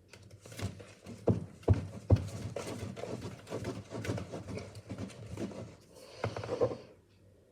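Cake batter being stirred in a mixing bowl, the utensil knocking and scraping against the bowl in a quick, irregular run of taps. Three sharper knocks come between one and two seconds in, and a louder cluster comes near the end.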